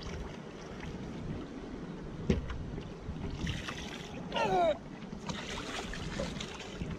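Water lapping and splashing around kayaks on open water, with a sharp knock about two seconds in and a brief wavering cry about four and a half seconds in.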